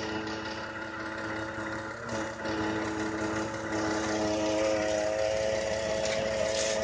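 2014 Ford F-150's 3.5-litre twin-turbo EcoBoost V6 idling steadily, with a noise that the owner wonders may be a vacuum leak. There is a brief dip about two seconds in, and it gets a little louder about four seconds in.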